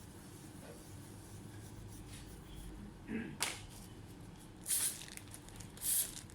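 A few short rustling, scraping strokes from hands working on a laptop during disassembly, one after another in the second half.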